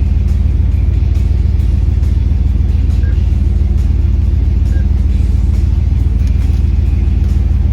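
Dodge 440 big-block V8 running steadily while driving, a loud, steady low drone.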